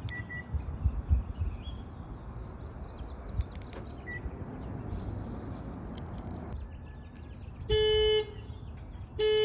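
Car horn giving two short toots about a second and a half apart near the end, set off by the keyless remote as it is tested on its new battery. The remote is working. A low rumble of wind and handling on the microphone runs beneath.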